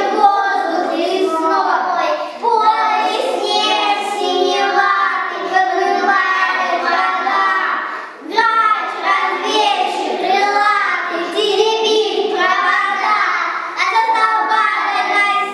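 A small group of children singing together, with a short break about eight seconds in.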